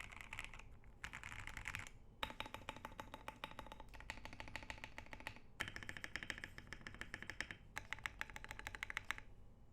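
Fast typing on a Corgi65 custom mechanical keyboard: lubed OP Black switches (JWK panda stems in GMK screw-in housings) on a polycarbonate plate with poron case foam, under ASA-profile keycaps. The keys clatter in dense runs with short pauses, and the typing stops shortly before the end.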